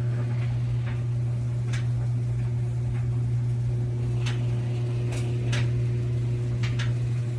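Steady low electrical hum, with a few faint scattered clicks and ticks over it.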